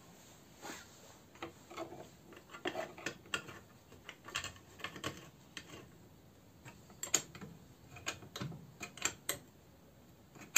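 Irregular light metallic clicks and knocks as the scroll saw's drilled steel arm links and pivot parts are handled and fitted back together by hand, in two bursts with a short pause in between.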